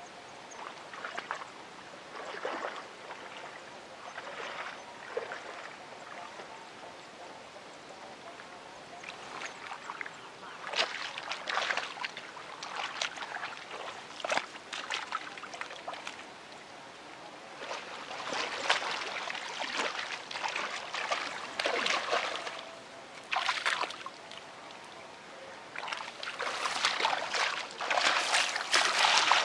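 Shallow muddy water sloshing and splashing in irregular bursts as a person wades and gropes through it with bare hands and feet. It gets busier and louder near the end.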